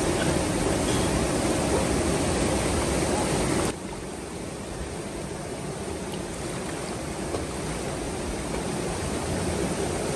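Fast river water rushing over rocks, a steady noise that drops suddenly to a lower level about four seconds in.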